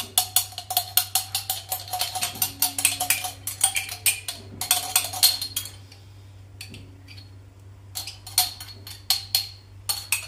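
A utensil tapping and scraping inside a small glass jar of garlic, knocking the last of it out in quick clinking taps that ring off the glass. The tapping pauses for about two seconds after six seconds in, then starts again.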